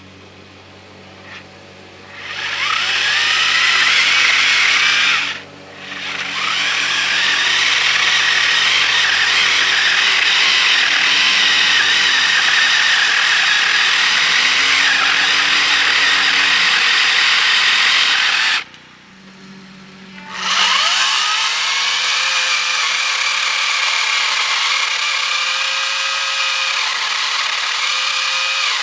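Ryobi 40-volt cordless pole saw's electric motor and 10-inch chain cutting into a small wooden stump. It is run in three bursts, spinning up with a rising whine each time, with short stops about five seconds in and again about two-thirds of the way through.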